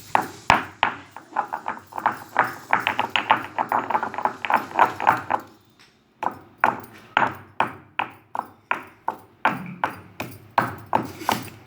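Pestle pounding tulsi leaves, garlic and ajwain into a paste in a mortar. Quick, rhythmic strikes come about four a second, then a short pause about halfway, then slower strikes about two a second.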